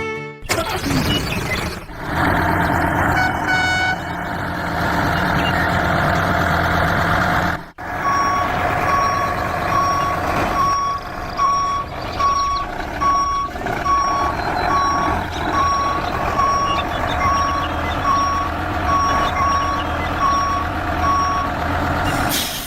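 Heavy vehicle engine running steadily, with a reversing alarm beeping evenly, about three beeps every two seconds, from about eight seconds in until shortly before the end.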